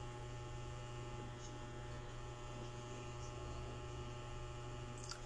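Steady low electrical hum with a faint background hiss: room tone with no other clear sound.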